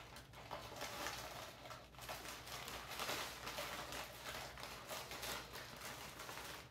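Frozen mango pieces poured from a plastic bag into a portable blender jar, dropping in with light, irregular clattering taps.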